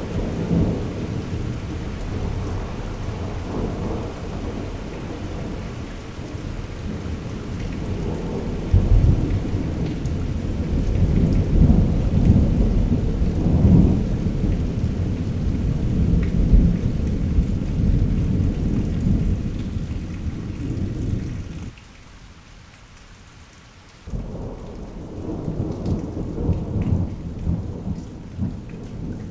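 Thunder rumbling in a long, low roll that swells sharply about nine seconds in and stays loud for several seconds, breaks off suddenly a little over twenty seconds in, then rumbles on again, with rain falling.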